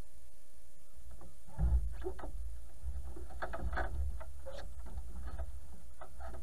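Water lapping and splashing in small irregular slaps against the bow of a small sailboat moving through calm water, with a low wind rumble on the microphone that swells about a second and a half in.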